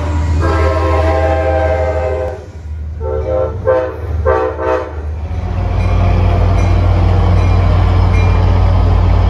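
Train horn sounding one long blast and then several short blasts. After that comes the loud, steady low rumble of a locomotive running past.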